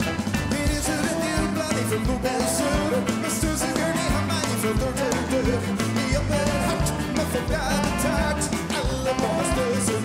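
Live rock band playing an upbeat song with drums, guitars and saxophone, a man singing over it.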